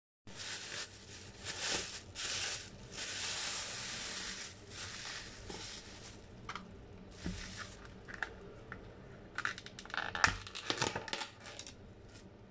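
Thin plastic carrier bag rustling and crinkling as it is opened and handled, then scattered clicks and snaps of a clear plastic takeaway container and its lid being handled and opened, the sharpest snap about ten seconds in.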